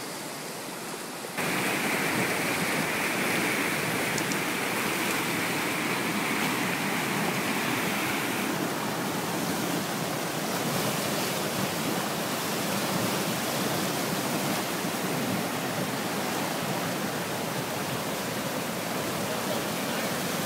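Swollen, muddy river in flood rushing and churning under a bridge: a steady, loud rush of water. It starts abruptly about a second and a half in, after a quieter stretch of water noise.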